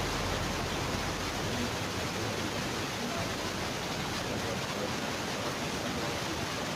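A steady, even hiss of static.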